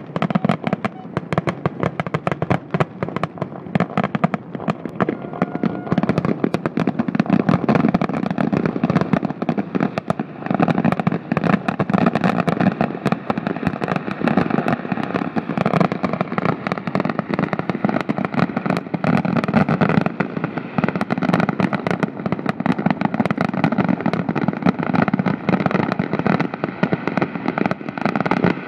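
Fireworks display: an unbroken barrage of bangs and crackling pops, many cracks a second.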